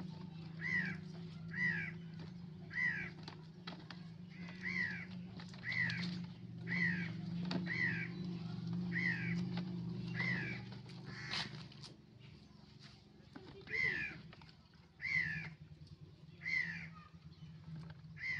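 A bird calling over and over, roughly once a second, each call a short downward-slurred note; a low steady hum runs underneath and stops about two-thirds of the way through.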